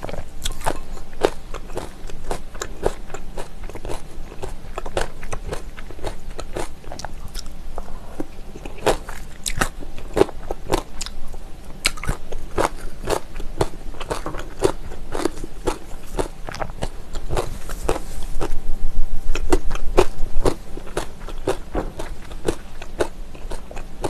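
Close-miked wet chewing and mouth clicks of someone eating spicy seasoned raw oysters, a few clicks a second, with a louder stretch for a couple of seconds near the end.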